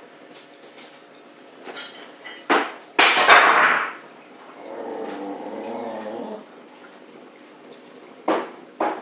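Steady bubbling and hum of an aquarium's air bubbles and filter, broken by a loud burst of noise about three seconds in, a second noise lasting about two seconds, and two sharp knocks near the end.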